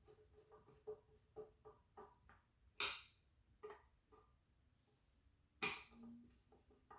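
Metal parts of a panic exit device being handled during reassembly: a run of light ticks, then a few sharp clacks, the loudest a little past halfway.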